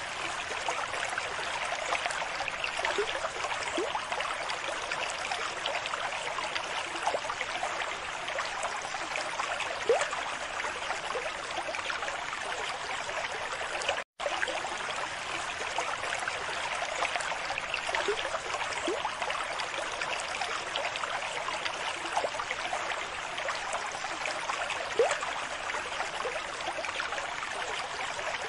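Steady bubbling and trickling of aquarium aeration: a stream of air bubbles rising through the water and breaking at the surface, with a brief break about halfway.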